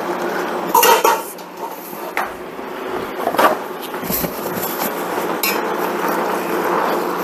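Chow mein noodles, chicken and vegetables frying in a pan as they are stirred and tossed together. A utensil knocks against the pan several times, loudest about a second in, over a steady sizzle.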